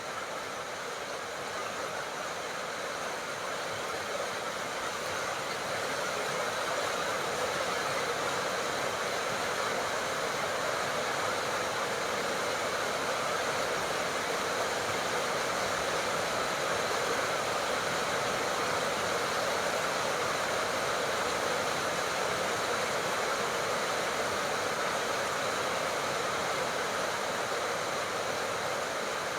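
Steady, heavy tropical rain falling, an even hiss of countless drops, growing a little louder in the first few seconds and then holding level.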